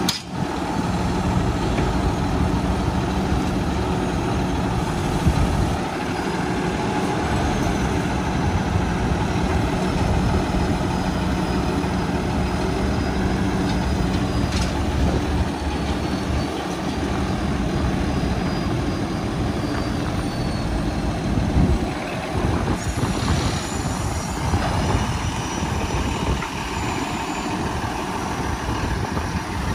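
Peterbilt 320 garbage truck's engine running steadily with the hydraulics working the Heil side-loader arm. Near the end the steady hum gives way to a rougher sound as the rear tailgate is being raised.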